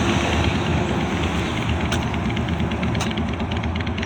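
Motorcycle with loud exhaust pipes running, a steady heavy rumble.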